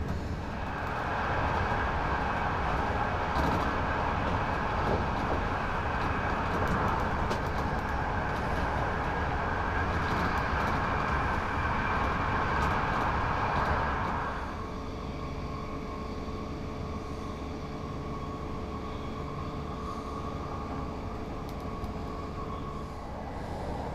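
A train running on the rails, a steady rolling noise that is louder for the first half and drops to a lower, even level about halfway through.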